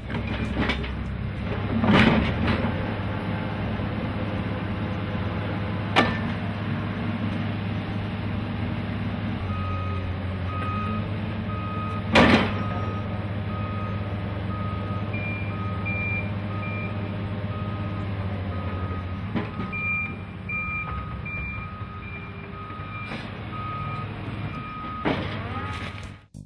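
Diesel engine of a drilled-shaft auger rig running steadily, with several sharp metal clanks, the loudest about two and twelve seconds in. From about ten seconds in, a reversing alarm beeps over and over.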